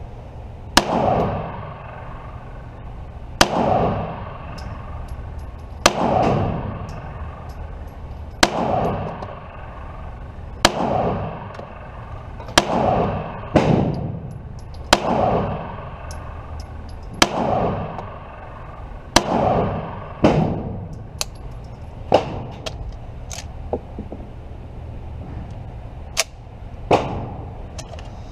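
9mm CZ TS2 pistol firing slow single shots, about a dozen spaced one to two and a half seconds apart. Each crack is followed by a short echo that dies away, with a few sharper cracks without an echo mixed in.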